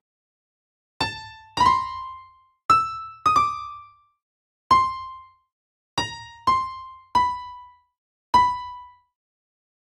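Single software piano notes sounding one at a time, nine in all at uneven intervals, each struck and fading out, as notes are tapped into a piano roll on a phone music app. The notes step up and down within one high register.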